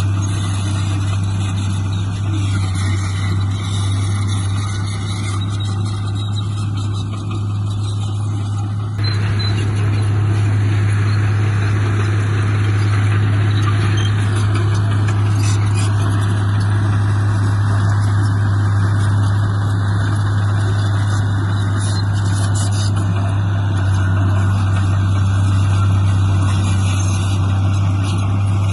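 Heavy diesel earthmoving machinery engine running steadily at a constant low pitch, with a noisy mechanical rush over it; it gets a little louder about nine seconds in.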